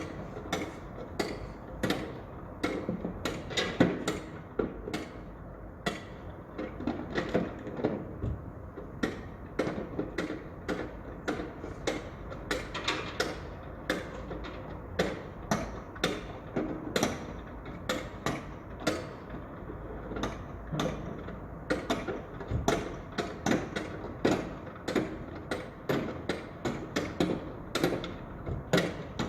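Construction site ambience: irregular knocks and clanks, roughly two or three a second, over a steady low rumble.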